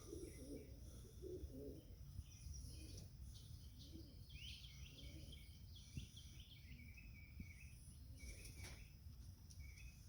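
Faint outdoor ambience: soft pigeon cooing in the first two seconds, then scattered small-bird chirps and twitters over a low steady rumble.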